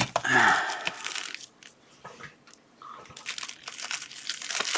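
Plastic packaging crinkling and crunching as it is worked open by hand, in two bouts with a quieter pause of about a second and a half between them.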